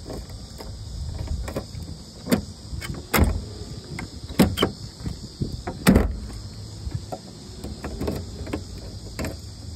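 A run of irregular knocks and thumps, the loudest about three and six seconds in, over a steady hiss.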